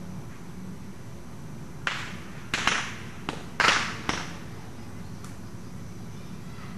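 About six short, sharp knocks in a quick cluster starting about two seconds in, the loudest near the middle, over a steady low outdoor background.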